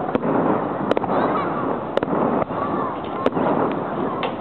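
Aerial firework shells bursting in a display: five sharp bangs, roughly one a second, over a steady background din.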